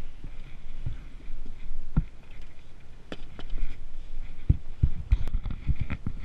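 Dull thuds and a few sharper knocks on a metal jon boat as a seat is set in place and someone steps around inside the hull, the knocks coming closer together near the end.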